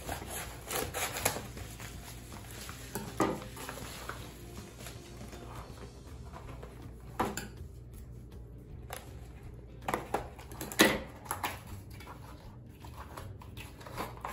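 Scissors cutting through a padded paper mailer, then paper and cardboard rustling and handling as a box is pulled out and opened, with a few sharp knocks of things set down on a wooden table.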